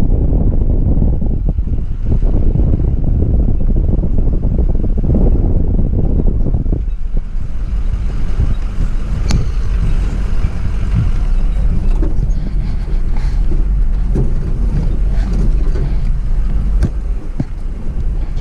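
Truck camper driving over a rough dirt trail: a steady low rumble of engine and tyres. Wind buffets the microphone for about the first seven seconds, then scattered clicks and rattles come through.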